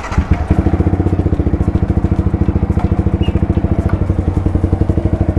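Yamaha R15 V3's single-cylinder 155 cc engine started up, catching at once, then idling steadily with an even, rapid pulse.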